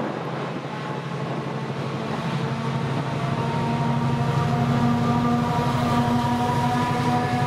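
Convoy of Colas Rail Class 70 diesel locomotives passing, their GE PowerHaul V16 engines giving a steady hum with several whining tones above it, growing louder from about two seconds in.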